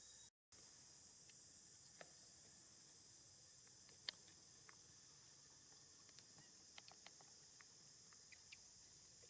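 Faint, steady high-pitched insect chorus with a few scattered small clicks and ticks, one sharper click about four seconds in; otherwise near silence.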